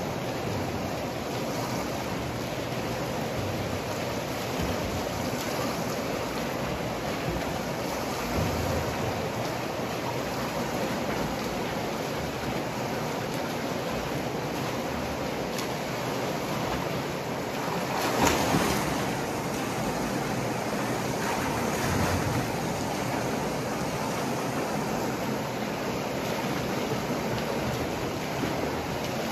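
Splashing water from a swimmer doing front crawl in a pool, a steady wash of churning water with a louder swell about eighteen seconds in.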